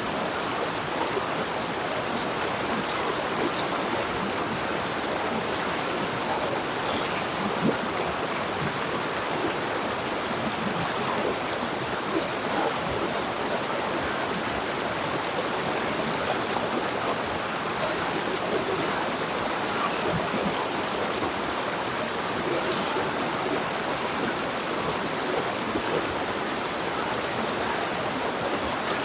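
A jungle river flowing steadily over rocks, a dense, even rush of water with small splashes and gurgles.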